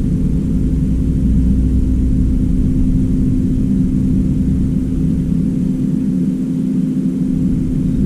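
A steady, loud low mechanical drone with a constant hum running through it.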